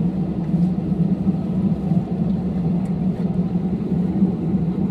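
Airliner cabin noise: a steady low drone of engines and airflow heard from inside the plane.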